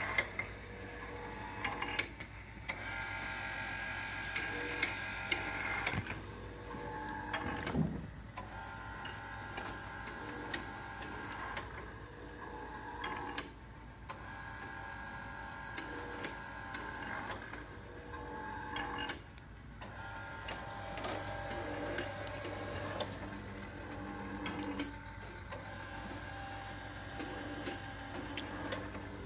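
Belshaw Donut Robot Mark II donut machine running, a steady motor whine that breaks off and resumes every few seconds, with many sharp clicks.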